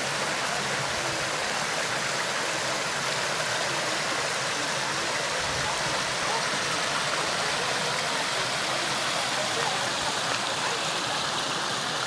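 Creek water running steadily over rocks, an even rushing sound.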